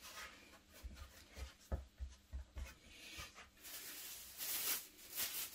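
Hands pressing and rubbing crumbly shortcrust pastry dough into a ball on a plastic board: faint rubbing with soft dull knocks, then a louder rustling hiss from a little past halfway.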